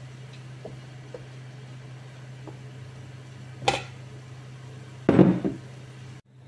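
Ceramic bowl clinking against the rim of a stainless steel pot as couscous is tipped in, then a louder knock about five seconds in as the bowl is set down on the counter. A steady low hum runs underneath.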